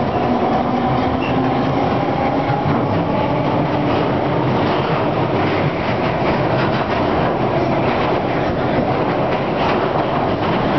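London Underground 1967 Tube Stock train running at speed through a tunnel, heard from inside the carriage: a steady, loud rumble with the wheels clattering over the rail joints.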